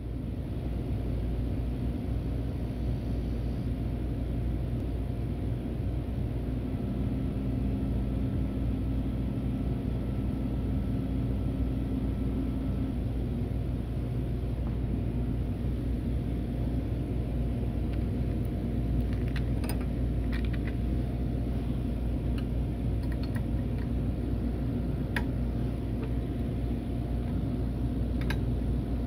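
Steady low machine hum from a CNC router setup, with a faint whine for several seconds a quarter of the way in as the spindle is raised. Light metallic clicks over the last third as a collet wrench is handled at the spindle for a drill bit change.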